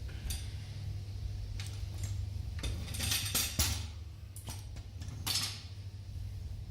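Metal tools and engine parts clinking and clattering in a series of sharp knocks, the busiest stretch in the middle, over a steady low hum.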